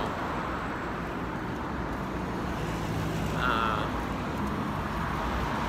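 Steady city road traffic, cars running along a wide avenue, with a brief high, wavering tone a little past halfway through.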